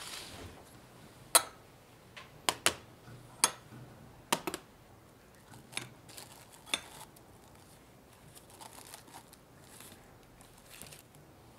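Sharp clinks of glass tumblers and metal being set down on a stainless steel baking tray, about eight in all over the first seven seconds. Then a soft crinkling of plastic cling wrap as it is smoothed over them.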